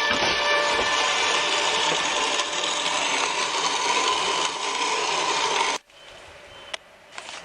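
A steady scraping, rasping noise, like a saw or file working on wood, which stops abruptly near the end.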